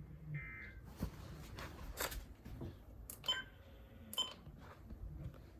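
Quiet room noise with a low hum, a brief high beep about half a second in, and four or so scattered sharp clicks, the last two with a short ringing tone.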